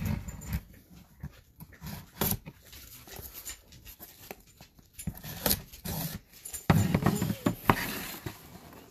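A sealed cardboard hobby box being slit open with a multi-tool knife blade and handled: scattered scraping, crinkling and tapping of the blade, wrap and box. A louder, rasping low sound comes about two-thirds of the way in.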